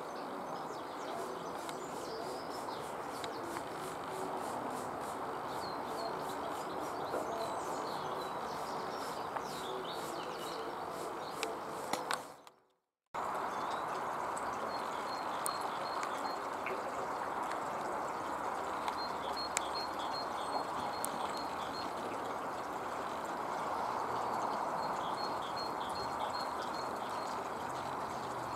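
Outdoor garden ambience: a steady background hiss with birds chirping in short, repeated high notes. The sound cuts out for about a second around twelve seconds in, then returns.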